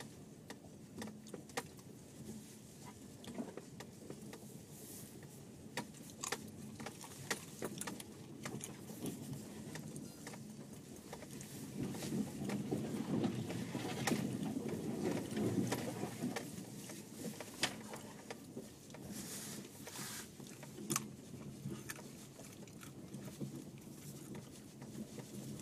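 Cabin noise of a 2010 Subaru Forester driving across a cornfield of stubble and patchy snow: a low engine and tyre rumble with frequent knocks and rattles as it bumps over the rough ground, swelling louder about halfway through.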